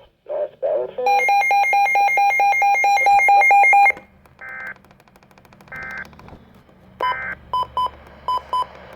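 Electronic weather-radio alert tones. A rapid string of sharp beeps runs for about three seconds. Three short bursts of buzzy data tone follow, then a few short single beeps.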